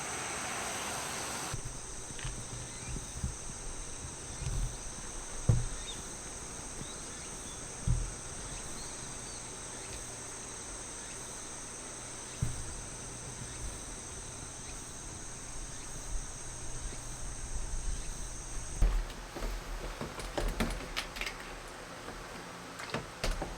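Insects chirring steadily in one even, high-pitched band, broken by a few dull low thumps; the chirring cuts off about nineteen seconds in.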